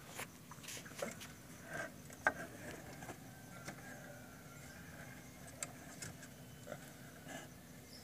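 Faint rustling and scattered light clicks as a hand moves through a fur-lined rabbit nest, with a sharper click a couple of seconds in.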